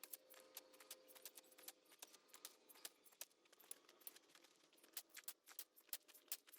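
Near silence with faint, irregular sharp clicks and ticks scattered throughout.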